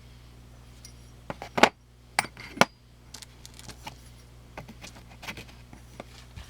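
Titanium knife scales clinking and clicking against each other or a hard surface as they are handled and swapped. The loudest clicks come a second or two in, then lighter scattered taps.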